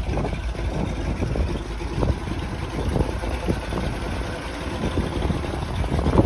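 The gasoline V8 (391) of a 1976 Ford F-600 grain truck idling, a steady low rumble.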